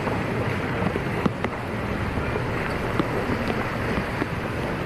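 Wind buffeting the microphone, a steady rumbling rush with a few sharp clicks.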